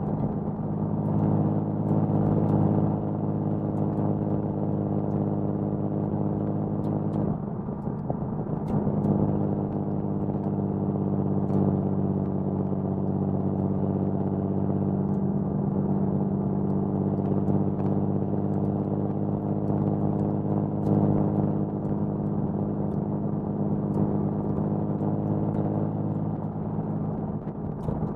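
1979 Datsun 280ZX's L28 inline-six on triple Weber carburettors, through a 6-2-1 header and HKS Hi-Power exhaust, running steadily under way at part throttle. The note dips briefly about seven seconds in, then picks up again.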